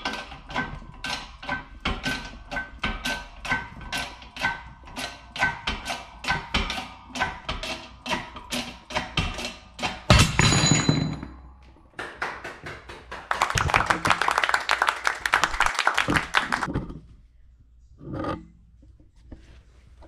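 Music with a steady beat. About ten seconds in, a loud bang with a metallic ring as the old wheel bearing breaks loose under the hydraulic shop press. A few seconds later comes a stretch of rapid clicking.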